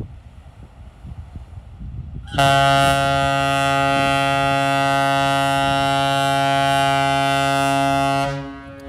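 The LAFD fireboat's horn sounds one long, steady blast of several tones at once, starting about two seconds in and lasting about six seconds before it cuts off. It is one of the blasts the fireboat gives when a water display is done, to signal firefighters that it is clear to go in.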